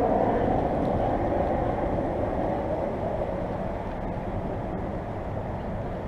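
Steady vehicle road noise, a rushing of tyres and engine with a low rumble underneath. It starts abruptly and slowly eases off.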